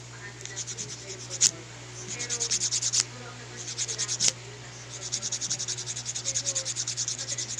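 A red emery nail file scraped quickly back and forth across a toenail, several strokes a second, in short runs with brief pauses. A sharp tap ends each of the first three runs, and the last run goes on longer.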